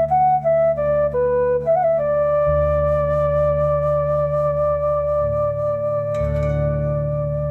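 Background music: a flute-like melody of short notes stepping downward, settling into one long held note, over a steady low drone, with a new low chord coming in near the end.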